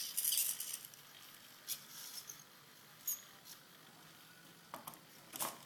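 Small handling noises of a pencil being placed for a robot arm: a brief rustle at the start, then a few scattered light clicks, one with a short high squeak about halfway through.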